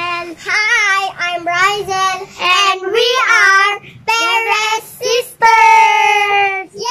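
Two young girls singing a short, lively song together, ending on a long held note near the end.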